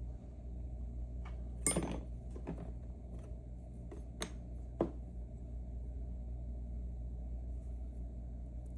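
Small metal clicks and clinks from an opened M&C Matrix lock and its tools being handled as it is taken apart: a brief clatter about two seconds in, then a few single sharp ticks, over a steady low hum.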